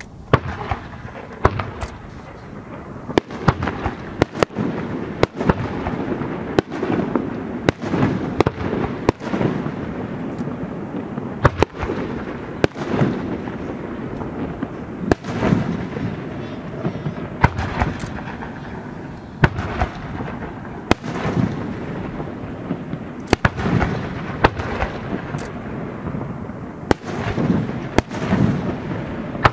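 Aerial firework shells launching and bursting in quick succession: sharp bangs, often one or two a second, over a low rumble that fills the gaps between them.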